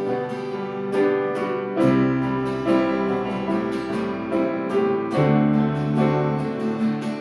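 Instrumental hymn music: slow held chords over sustained bass notes, the harmony changing every second or two.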